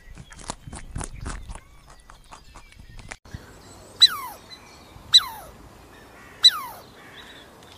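Soft clicking and rustling, then a short, sharp animal call that falls steeply in pitch, repeated four times about every second and a quarter.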